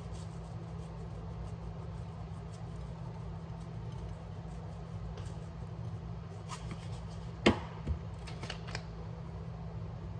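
Seasoning being shaken from shaker bottles onto raw chicken: a few faint, short rattling shakes and a sharp click about seven and a half seconds in, over a steady low hum.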